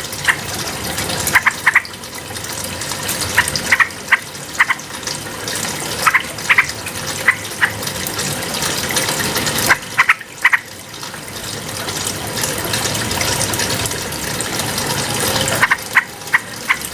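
Yellow-vented bulbul giving short, sharp notes, often in quick pairs, every second or two over a steady rush of running water.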